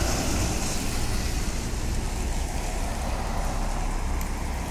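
A bus passing close by, its engine and road noise a steady rush with a low rumble that slowly fades.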